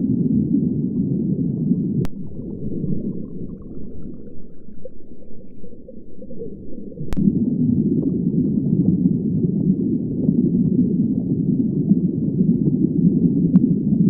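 Low, muffled underwater rumble, without any dolphin whistles or clicks. It thins out between about two and seven seconds in, then comes back fuller, with a faint sharp click at each of those two points.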